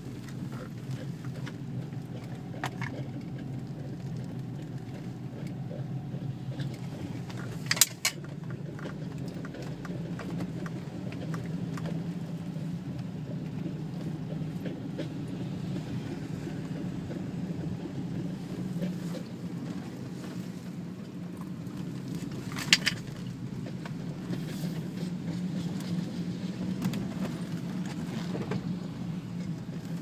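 Inside an Audi A4 B6 rolling slowly: a steady low drone from a bad wheel bearing, swelling and easing, over the tyres' road noise. Two sharp clicks stand out, one about a quarter of the way through and one about three-quarters through.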